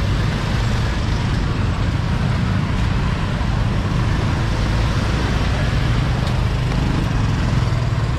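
Scooter and motorbike engines running at a crawl close by, a steady low drone, with people's voices in the background.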